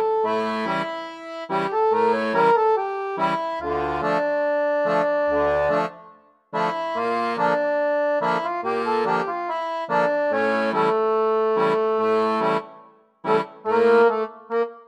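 Instrumental background music, a melody over held chords, breaking off briefly twice.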